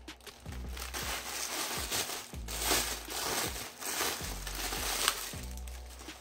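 Clear plastic garment bag crinkling and crackling irregularly as a knit cardigan is pulled out of it by hand.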